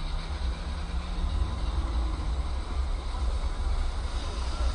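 Steady low rumble of a car idling at a standstill, heard from inside its cabin, with a faint low hum for the first two seconds or so.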